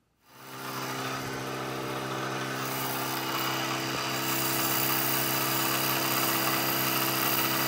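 Vertical milling machine running steadily, its end mill cutting aluminium: a constant motor and spindle hum under a dense cutting hiss.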